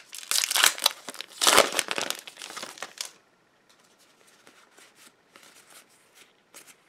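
The foil wrapper of a Pokémon Guardians Rising booster pack crinkling and tearing open in the hands for about three seconds. After that come faint, scattered soft ticks as the trading cards are slid through the hand.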